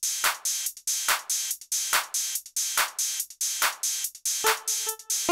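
Roland XPS-30 synthesizer keyboard playing a built-in drum-machine rhythm pattern, a steady beat that starts abruptly at the very beginning; pitched synth notes join in about four and a half seconds in.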